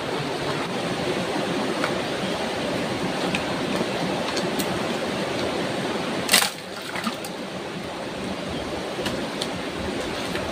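Shallow river rushing over rocks, a steady noise, with faint clicks of stones. About six seconds in there is one sharp, loud knock, after which the water is a little quieter.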